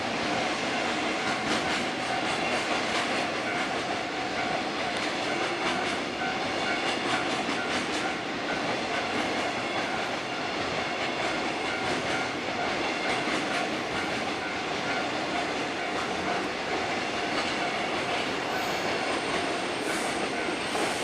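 Freight train rolling steadily through a level crossing, its wagons' wheels clicking over the rail joints under a continuous rumble. A crossing warning bell rings in an even beat, about two strikes a second.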